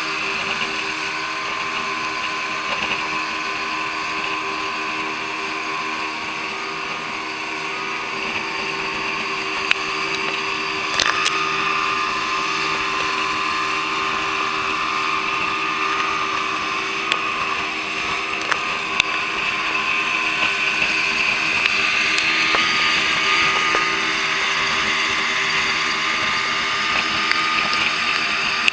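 Motorboat engine running steadily at speed, a constant drone with water and wind rushing past, and a few short knocks now and then.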